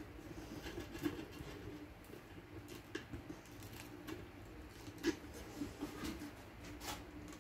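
Faint, scattered clicks and scratches of hands and tools working at a pane of door-top glass, prising a part off it, over a faint low steady hum.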